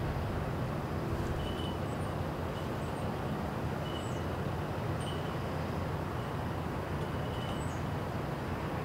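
Steady low rumble of an approaching diesel freight locomotive mixed with cars driving across a level crossing, with birds chirping faintly over it.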